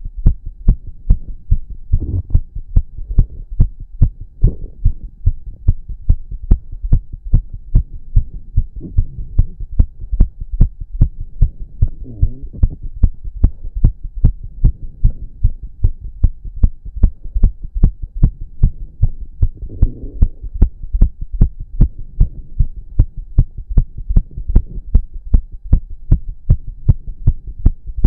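A man's heartbeat after exercise, fast and pounding: regular low thumps at a steady, rapid pace.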